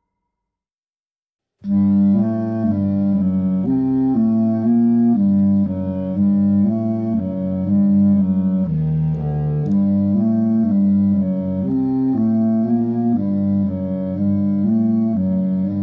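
Silence for about a second and a half, then instrumental background music starts abruptly and plays on, its notes changing about twice a second.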